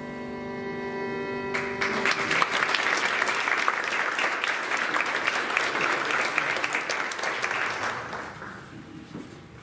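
The song's last chord, held on strings and other instruments, dies away, and about a second and a half in the congregation breaks into applause that lasts around six seconds and fades out near the end.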